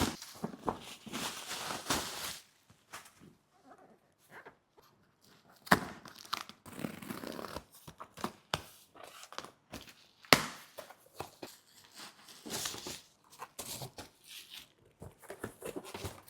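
A box's packaging being torn open and handled: tearing and crinkling with scattered sharp clicks and knocks, the loudest about six and ten seconds in.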